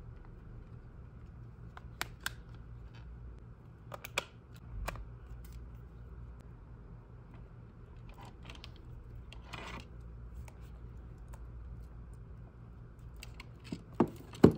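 Plastic phone cases and a phone being handled: scattered sharp clicks and taps, a short rustle around the middle, and a cluster of louder clicks near the end as the phone is pressed into a hard case, over a low steady hum.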